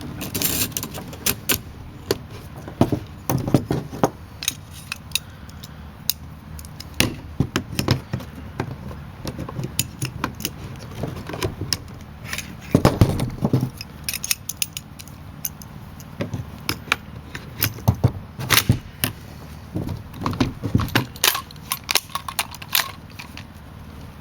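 Metal parts of a KWA LM4 PTS gas-blowback airsoft rifle clicking and clacking irregularly as it is reassembled by hand: the buffer and spring, receivers and pins going back together.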